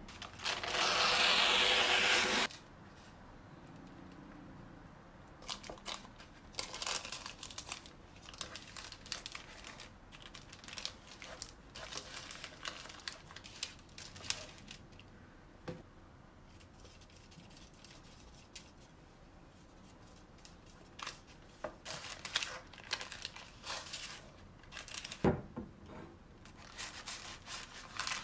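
Kitchen paper towel torn off in one loud rip about two seconds long, then on-and-off paper rustling and crinkling as raw steaks are patted dry and laid on paper sheets in a metal tray, with a single light knock near the end.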